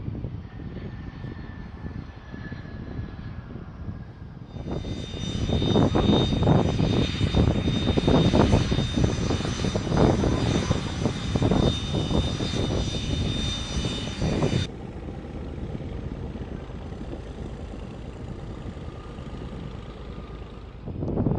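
Aircraft engine noise: a steady rumble, with a louder stretch from about five to fifteen seconds in that carries a high steady whine and starts and stops abruptly.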